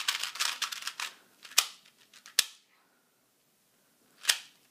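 A 2x2 puzzle cube being turned by hand, its plastic layers clacking: a quick run of turns at first, then two single sharp clicks, a pause, and one more click near the end.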